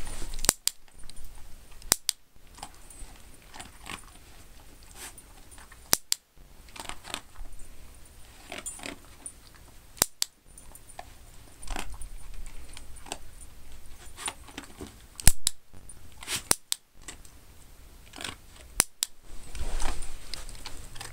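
A dog nosing and pawing at a towel on its cushioned bed: soft fabric rustling and light jingling, broken by several sharp clicks spread through.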